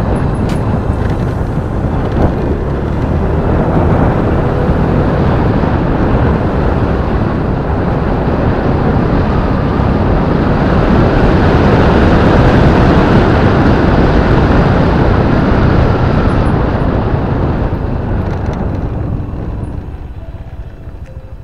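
Wind rushing over the microphone with a motorcycle engine running underneath while riding at speed. The rush eases near the end as the bike slows, leaving the engine's steady note more audible.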